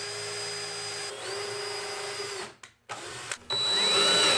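DeWalt cordless drill/driver driving screws through a steel hinge into wood, its motor whining steadily. It runs in three stretches, with a brief dip about a second in and a short break just past halfway, and the last stretch is the loudest.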